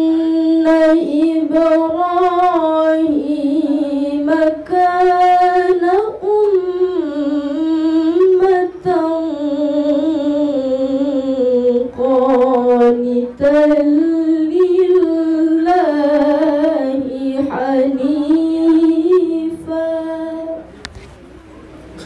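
A woman reciting the Quran in tilawah style into a microphone: a long, melismatic chanted phrase with wavering, ornamented pitch and a few brief breaks. It ends about 21 seconds in.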